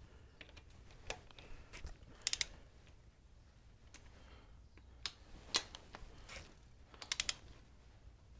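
Click-type torque wrench tightening primary cover bolts to 10–12 ft-lb: a scattering of sharp metallic clicks, some in quick pairs, with a fast run of three or four near the end, as the bolts come up to torque.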